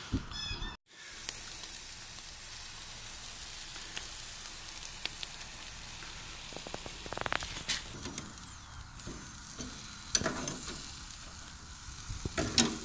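Chicken breasts and steaks sizzling over hot charcoal on a grill grate, a steady hiss. Near the end come a few sharp clicks as metal tongs move the meat.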